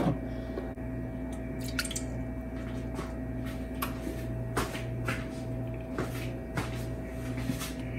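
A steady low hum with about eight short, faint clicks and ticks scattered through it.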